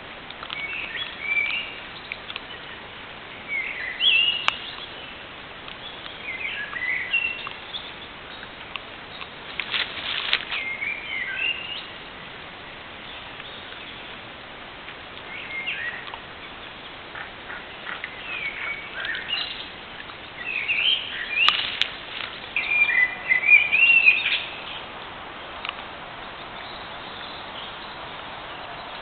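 Songbirds singing: short chirping and warbling phrases every few seconds over a steady hiss, with a few faint clicks.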